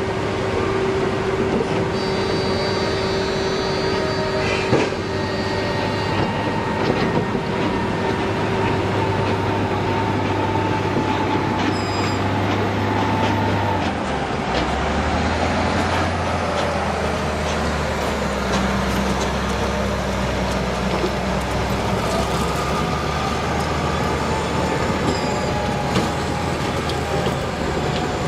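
BelAZ 75710 haul truck's twin diesel engines running with a deep, steady drone over a steady hum of heavy mining machinery. About halfway through, the engine note shifts lower.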